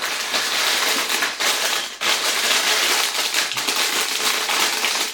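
Plastic bags of Lego pieces crinkling as they are handled, a dense crackle with a brief break about two seconds in.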